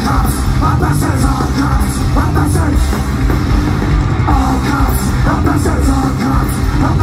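Punk rock band playing live, loud: electric guitars, bass and drums with a singer shouting the vocals.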